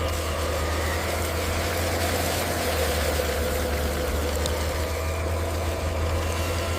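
A machine engine running steadily with an even low hum.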